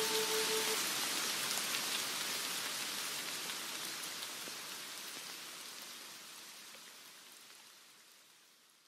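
Rain falling, with small ticks of single drops through it, fading out slowly to silence. A held musical note dies away within the first second.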